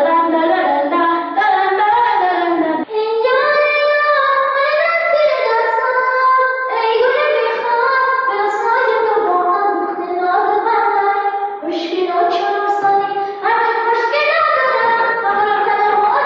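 A high voice singing a melody in long held notes that glide between pitches, pausing briefly for breath a few times.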